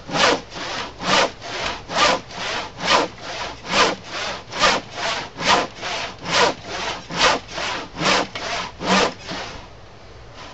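Handsaw crosscutting through the end of a thick glued-up workbench top: steady back-and-forth strokes, a strong cutting stroke about once a second with a lighter return stroke between. The strokes stop about nine seconds in.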